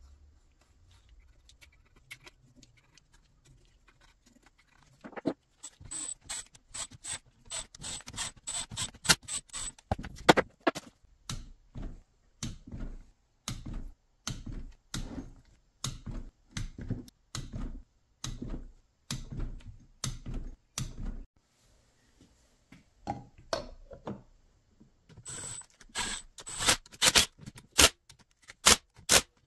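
Hand ratchet clicking in quick repeated strokes as the cylinder head bolts are run down, stopping for a few seconds, then a second run near the end.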